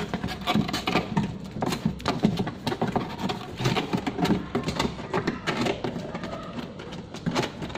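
Cardboard box being closed by hand: its flaps are folded down and pressed shut, in a continuous run of scrapes, taps and knocks.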